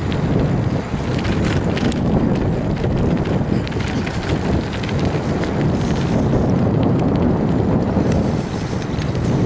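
Wind buffeting the camera's microphone: a loud, steady, low rumble with a few faint clicks.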